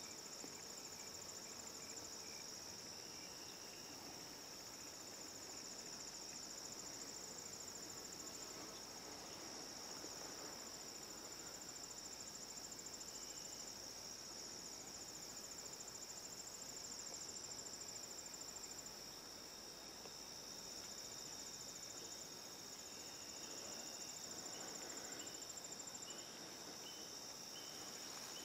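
A steady high-pitched chorus of crickets and other insects, continuous and faint. Near the end a separate fainter chirp repeats at an even pace.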